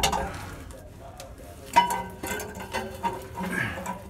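Old factory steel muffler of a Dodge Cummins pickup being lowered by hand from under the truck, with one sharp metallic knock a little under two seconds in and a few lighter knocks after.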